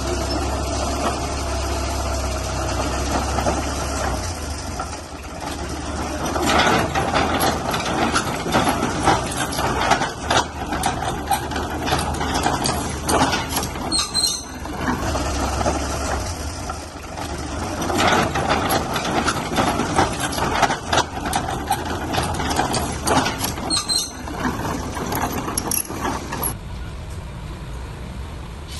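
Heavy diesel machinery running, with two long stretches of clanking and rattling, each ending with a brief high squeak, then settling to a quieter engine rumble near the end.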